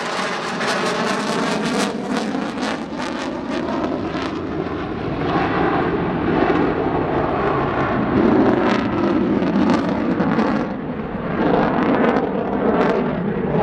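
Loud jet noise from a JASDF F-15J's twin engines in flight. It crackles rapidly for the first few seconds, then settles into a steadier deep rushing noise.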